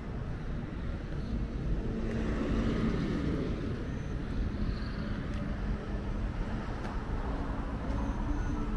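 Steady low rumble of road traffic, with a vehicle engine's hum swelling a little about two to three seconds in.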